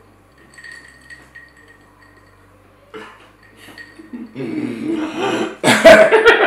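A light clink of dishes about three seconds in, then a person's voice making drawn-out wordless sounds that grow loud near the end.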